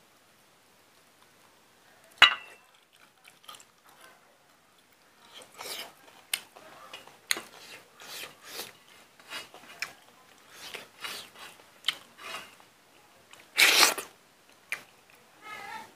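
Close-up chewing and lip-smacking of someone eating pork by hand, in short wet bursts several times a second. There is one sharp click about two seconds in and a louder burst of eating noise near the end.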